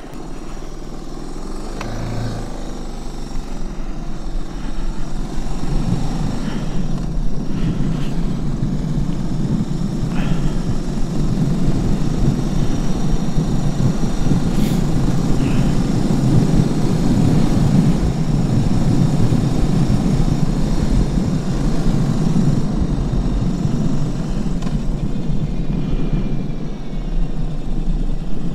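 Suzuki DR650 single-cylinder dual-sport motorcycle pulling away and riding, its engine and the wind noise building over the first few seconds and then holding steady.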